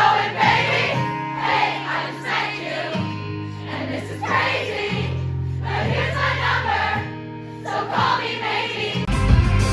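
Live pop concert recorded from the crowd on a phone: a female singer singing over held low keyboard chords that change every couple of seconds, with the audience singing along. Near the end it cuts abruptly to a fuller recorded song with guitar and drums.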